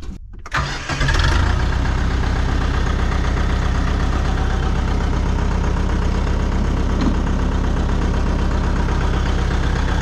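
UHI compact tractor's diesel engine starting: it cranks briefly, catches about a second in, then settles into a steady idle.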